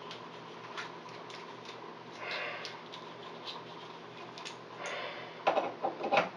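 Small copper pipe fittings being handled and brushed with flux paste: light clicks and short rubbing scrapes, then a cluster of louder metal knocks and clinks near the end as the fittings are pushed onto the copper pipes. A faint steady hum runs underneath.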